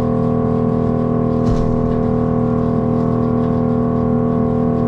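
Silo blower fan running steadily with a kind of loud, even drone that fills the silo. A brief scrape from a pitchfork in the haylage comes about a second and a half in.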